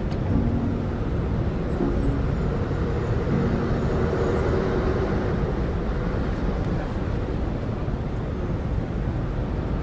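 Outdoor street ambience on a pedestrian shopping street: a steady low rumble with no distinct events, and faint musical tones underneath now and then.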